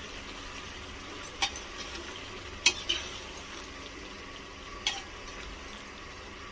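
A spoon stirring korma gravy in a kadhai, clinking sharply against the pan a few times, over the steady low sizzle of the gravy cooking on a low flame.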